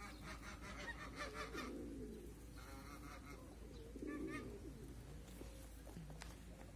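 Pigeons cooing in low, falling calls several times, with small birds chirping in quick runs during the first few seconds.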